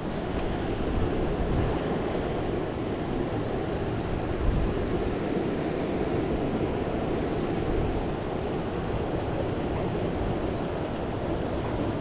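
Steady rush of a river running fast over rapids, an even wash of water noise with some low wind rumble on the microphone.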